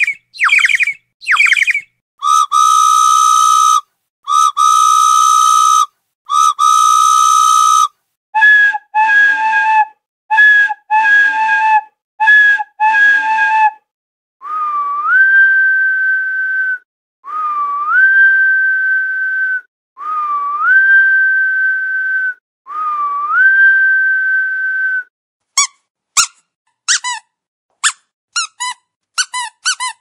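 A run of whistle-like sound effects in changing patterns. First come a few quick falling chirps, then three long steady tones of about two seconds each. Next come short double notes in quick pairs, then four tones that each swoop up and hold, and near the end a burst of fast chirps.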